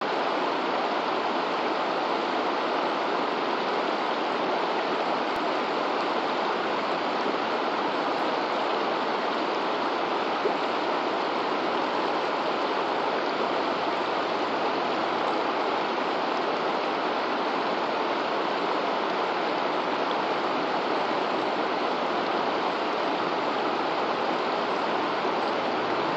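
Shallow, rocky river running in riffles over stones: a steady rush of water.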